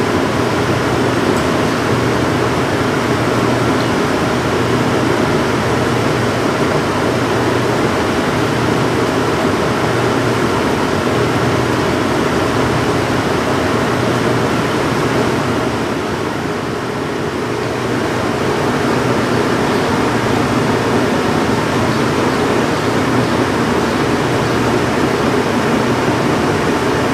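Shop machinery running: a steady electric-motor hum under a loud rushing whoosh. It dips slightly a little past halfway.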